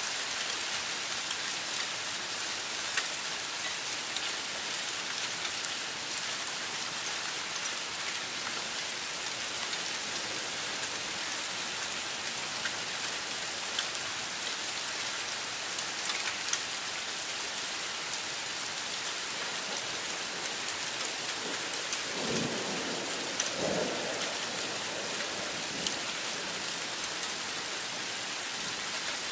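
Heavy rain falling steadily in a severe thunderstorm, a dense, even hiss of rain on roofs and pavement. Late on, a short, low rumble of thunder comes in twice over the rain.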